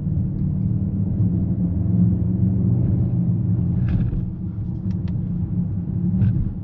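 Steady low rumble inside the cabin of the Mercedes-AMG GLE 63 S, its twin-turbo V8 running. A few light clicks come between about four and six seconds in.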